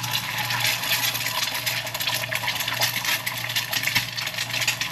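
An egg frying in hot oil in a wok as it is stirred to scramble it: a steady crackling sizzle with many small pops.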